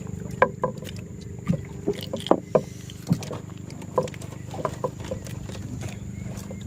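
A steady motor hum runs under a dozen irregular short knocks and taps, the sharpest about half a second in and near the middle.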